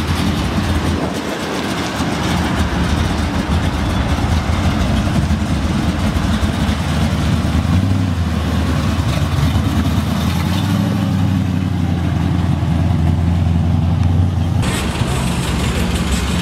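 Chevrolet Chevelle SS's engine running at low speed with a steady low exhaust rumble as the car rolls slowly by, growing stronger toward the end. It switches abruptly near the end to a different, hissier engine sound.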